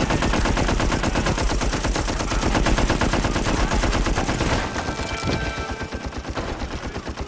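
Sustained rapid machine-gun fire from a heavy multi-shot gun, a dense stream of shots that thins out and drops in level about two-thirds of the way through.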